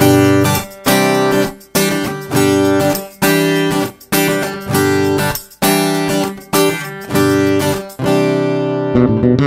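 Background music: an acoustic guitar strummed in a steady rhythm, a chord struck a little more than once a second, each ringing and fading.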